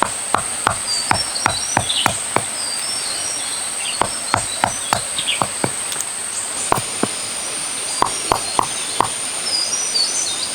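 Sharp knocks of hand-tool strikes on wood, in runs of several at about three a second with short pauses between runs. A steady high insect drone and a few bird chirps sound behind them.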